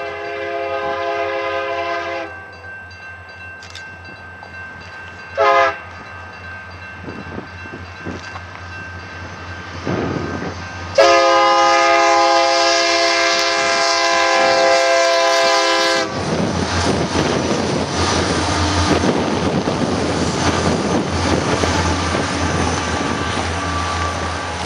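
Union Pacific freight train rolling past, autorack and double-stack container cars clattering over the rails with a steady low rumble. A multi-note train horn sounds to about 2 s in, gives a short toot about 5.5 s in, and sounds a loud long blast from about 11 to 16 s in; after that only the rolling cars are heard.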